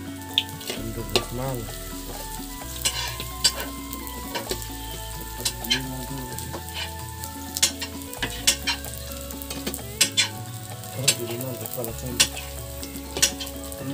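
Tempe cubes frying in a steel wok over a gas stove, sizzling steadily, while a metal spatula stirs them and scrapes and clicks against the wok every second or so.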